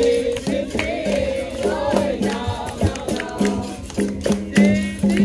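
Capoeira roda music: a berimbau holding and switching between two low notes, with pandeiro and rattle strokes and a group singing over them.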